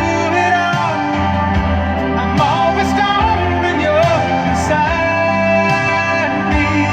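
A song with a sung melody over sustained instrument notes, played through a car audio system's DLS Nordica 6.2 front speakers.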